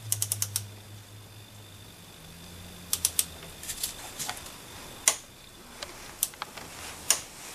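Torque wrench ratchet clicking in a quick run of about five clicks as the new coolant temperature sensor is tightened to 25 newton-metres. Scattered single clicks and taps from handling the wrench follow.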